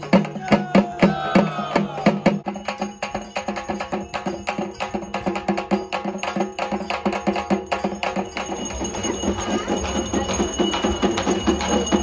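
Traditional ritual drum music: a steady, fast drumbeat over sustained held tones, accompanying a Tamil Hindu ceremony.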